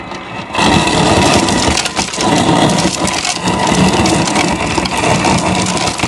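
Refrigerator door ice dispenser crushing ice and dropping it into a tumbler: a loud grinding and rattling over a steady motor hum. It starts about half a second in and stops at the end.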